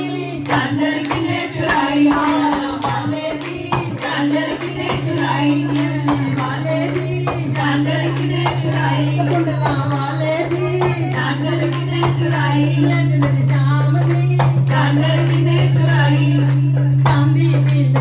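Women singing a Hindu devotional bhajan into microphones, with the gathered group clapping along in rhythm over a steady low drone.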